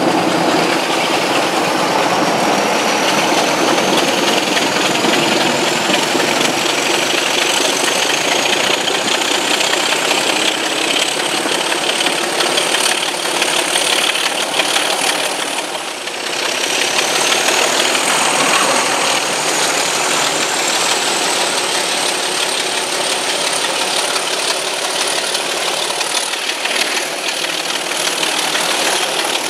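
Diesel locomotive working a train, heard from an open carriage window, its engine running steadily under wheel-on-rail noise and wind. A thin high whine rises slowly in pitch, drops back briefly about halfway through, then climbs again.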